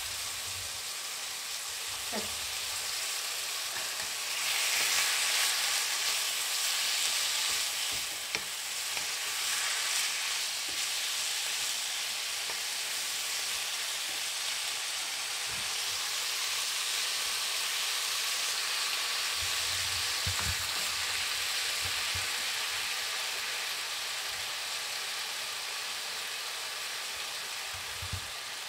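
Strips of veal sizzling in hot oil in a frying pan as they are stirred with a spatula, with a few light knocks of the spatula against the pan. The sizzle swells about five seconds in and settles back after about ten.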